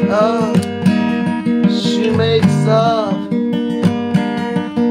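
Strummed acoustic guitar music, with a note that swoops up and down twice.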